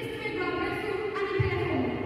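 A woman's voice amplified through a handheld microphone and loudspeakers in a large hall, speaking or half-singing in drawn-out phrases.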